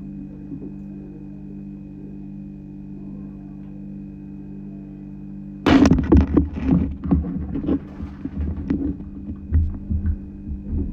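A steady low electrical hum, then from about six seconds in, loud irregular bumps and rustles of a phone's microphone being handled up close.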